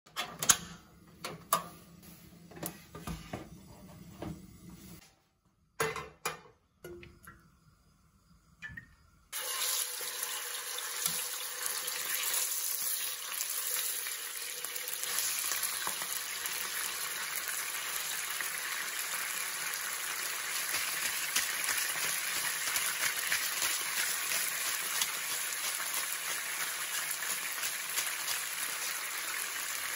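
A few sharp clicks and knocks as a portable butane stove is handled, then, from about nine seconds in, raw chicken breasts sizzling steadily in hot oil in a frying pan, with the occasional tap of metal tongs.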